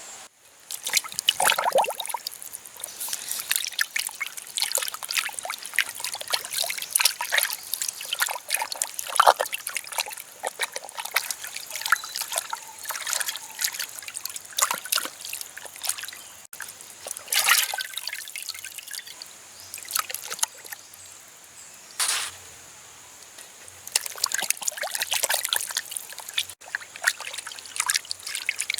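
Water trickling and splashing in irregular spurts, with a short lull about two-thirds of the way through.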